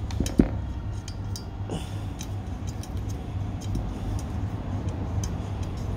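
Small clicks and taps of a metal dish rack's frame and parts being held and screwed together, with one sharper knock about half a second in, over a steady low rumble.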